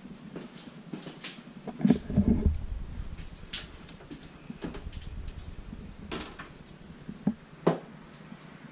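Scattered knocks and clicks from a wooden medicine cabinet being handled, its hinged mirror doors opened, with a cluster of heavier thumps about two seconds in.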